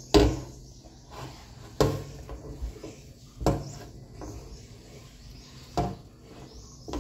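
Wire whisk beating thick butterscotch brownie batter in a bowl: soft scraping and churning, with the whisk knocking against the bowl about five times, a second or two apart.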